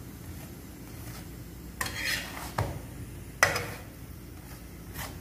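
Metal spatula scraping and clanking against a tawa as a paratha is pressed and turned: a scrape about two seconds in, a short click, then a sharper clank a second later.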